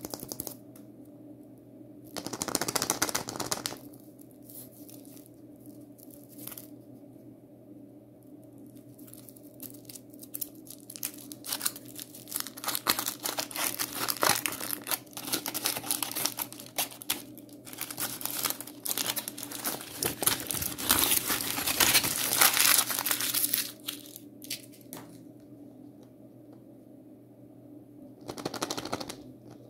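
Aluminium foil wrapper being peeled off a Chupa Chups chocolate egg by hand: crinkling and tearing in bursts, a short one a couple of seconds in, a long dense stretch through the middle, and another short one near the end.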